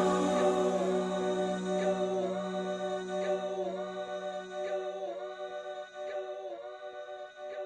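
Music: sustained wordless choir-like voices holding chords over a low drone, the drone stopping about six and a half seconds in as the whole fades down.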